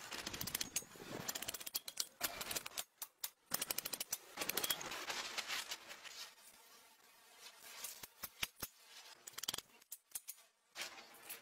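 Irregular light metallic clicks and taps as small bolts are set by hand into the holes of a row of forged steel blade blanks, in quick clusters during the first half and thinning out later.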